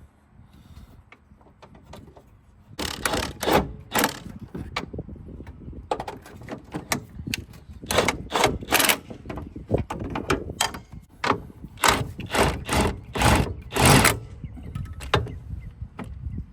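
Hand tools working on a car's rear suspension hardware: a run of short, irregular mechanical clanks and ratcheting strokes, starting about three seconds in and going on in clusters until near the end.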